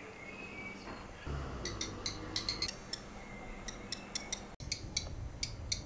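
Black redstart giving a series of short, hard ticking calls, several a second, starting a little under two seconds in.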